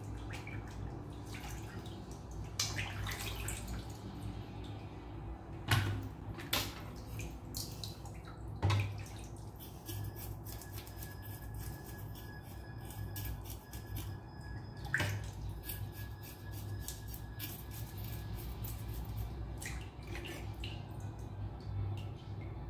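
Water dripping and small splashes as raw fish are cleaned by hand in a sink, with a few brief knocks against the plastic basin, over a steady low hum.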